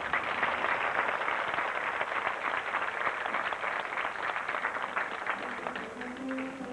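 Audience applauding: dense clapping that starts suddenly and thins out near the end, as a pit orchestra's brass begins playing underneath.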